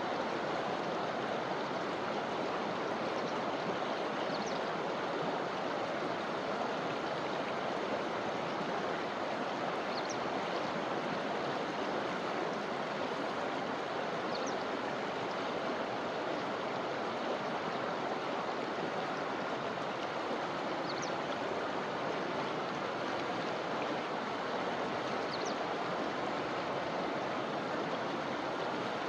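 River flowing: a steady rush of water, with a faint short high chirp every few seconds.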